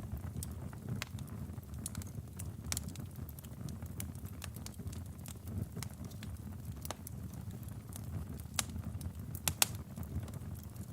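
Wood fire burning in a fireplace: a steady low rumble of flames with irregular sharp crackles and pops from the burning logs, a cluster of louder pops a little before the end.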